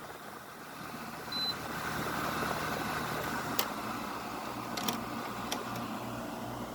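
Garage air conditioner running, a steady whoosh of its fan over a low hum that swells slightly about a second in. A short high beep about a second and a half in, and a few faint clicks later.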